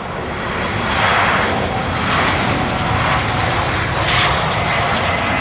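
Boeing 757 jet engines at takeoff thrust during the takeoff roll and rotation: a steady jet roar that grows louder over the first second and then holds.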